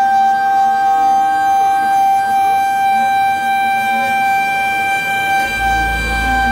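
Pocket NC v2-50 desktop five-axis mill roughing an aluminium part: a steady, high-pitched spindle whine with a stack of overtones, and faint gliding tones from the axes moving. About five and a half seconds in, a low hum joins in.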